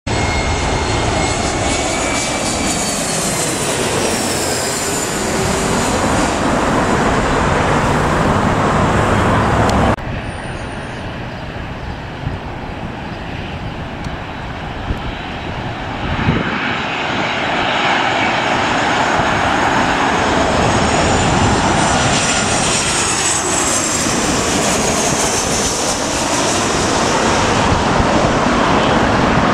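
Jet airliners on landing approach passing close overhead, their engine noise carrying high whines that fall in pitch as each plane goes by. The sound drops suddenly about a third of the way in, then builds again as a Southwest Boeing 737's twin jet engines come over and move away toward the runway.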